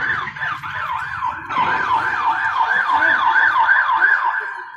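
Ambulance siren in a fast yelp, its pitch rising and falling about three times a second. It breaks off briefly about one and a half seconds in, starts again, and fades away near the end.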